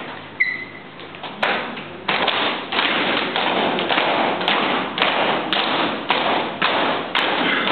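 A group of people beating time in unison: a steady run of sharp thumps, a little under two a second, which starts about two seconds in after one lone knock.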